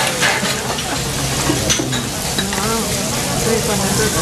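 Butter sizzling steadily as it melts and foams on a hot steel teppanyaki griddle.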